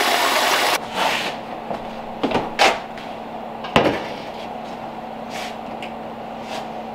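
Water running from a tap into a black speckled enamelware water-bath canner, stopping about a second in. Then a few clunks and knocks as the pot is handled and set on the glass cooktop, one louder knock near the middle.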